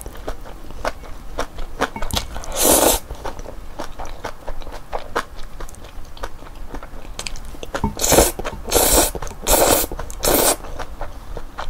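Close-up slurping and chewing of black-bean-sauce instant noodles (Samyang Burning Gochu Jjajang): wet chewing clicks throughout, one slurp a few seconds in and a run of four quick slurps near the end.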